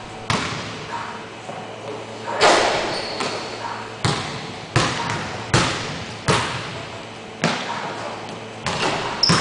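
Basketball bouncing on a hardwood gym floor, sharp irregular bounces about one or two a second, each echoing in the large hall. A couple of short high squeaks are heard, one about three seconds in and one near the end.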